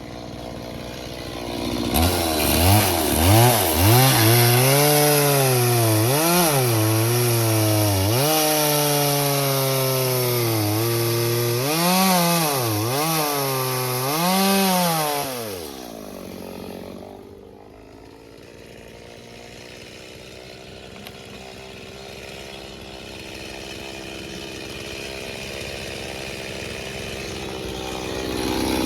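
Stihl MS 170 two-stroke chainsaw revved up about two seconds in and run at high revs through wood, its pitch dipping and rising under the load of the cut. About halfway it drops back to a steady idle, then revs up again at the very end.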